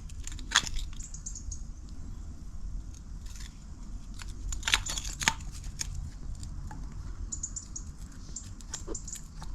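Plastic sink waste-pipe fittings being handled and screwed together: scattered light clicks and scrapes, a few sharper ones around the middle.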